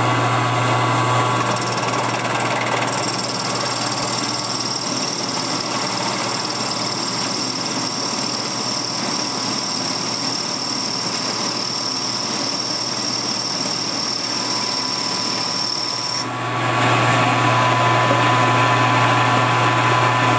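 Milling machine running a homemade ball-form cutter that plunges a hemispherical mold cavity into an aluminum block: a steady motor hum under a high, even cutting whine. The whine stops about 16 seconds in while the machine keeps running.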